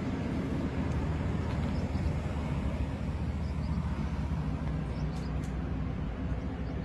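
A vehicle engine idling: a steady low rumble that holds level throughout.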